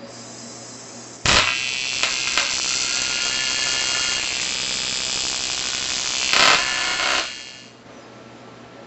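AC TIG welding arc on an aluminium air-conditioning pipe, at about 35 amps, giving a steady buzz. It starts suddenly about a second in, swells briefly near the end and stops about seven seconds in.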